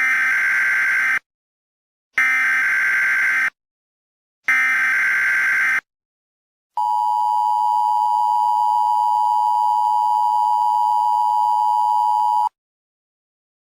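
Emergency Alert System tones: three bursts of digital SAME header data, each about a second long with short gaps between, then the steady two-tone attention signal held for about six seconds and cut off sharply.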